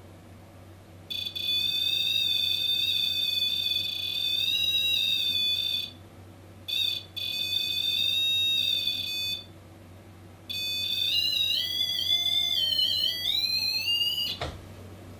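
Small electronic proximity alarm, of the kind used in paranormal investigation, sounding a high-pitched electronic tone in three long stretches of a few seconds each while its light glows; in the last stretch the pitch wavers and climbs, then cuts off suddenly. The alarm signals that something has come near its sensor, which the investigator takes for a spirit.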